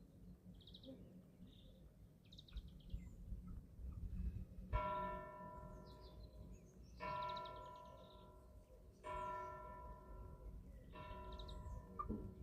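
A church bell tolling, four strokes about two seconds apart, each ringing on until the next, with faint chick peeps in the first few seconds.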